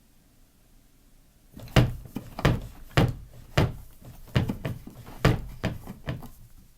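Homemade foley: a run of about a dozen thumps or knocks at an uneven pace, starting about a second and a half in, with the sound cutting off suddenly at the end.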